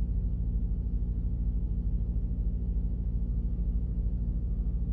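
A steady low hum with no other event; no crossbow shot is heard yet.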